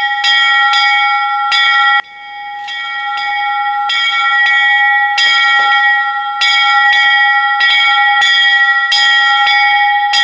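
Small bell hung on a frame, rung by pulling its chain: clanging over and over, about two strokes a second, each stroke ringing on into the next. The ringing dips briefly about two seconds in, then builds back up.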